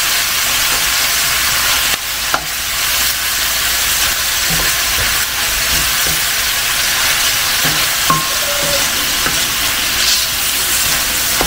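Beef chunks and sliced onions sizzling steadily in a hot stainless steel sauté pan while being stirred with a wooden spatula that scrapes and knocks against the pan now and then. The pan is hot enough that the meat is starting to scorch.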